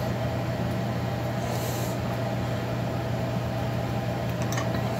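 Steady mechanical hum of a running machine in the workshop, with a short hiss about a second and a half in and a few light clicks near the end.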